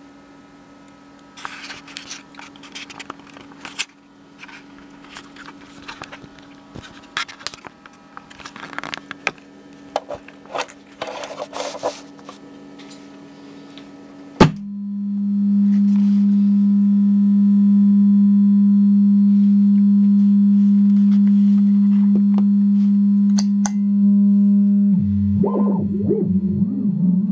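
Clicks and scratches of lab gear being handled over a faint mains hum. About halfway a sharp click, then a loud, steady low electronic tone from a signal generator through a speaker. Near the end the tone starts to warble and slide up and down in pitch as a knob on a small effects box is turned.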